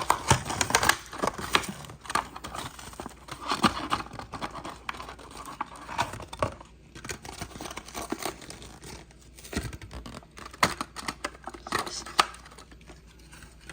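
A Hot Wheels blister card being opened by hand: the stiff plastic blister and cardboard crackling, tearing and crinkling in irregular snaps and rustles.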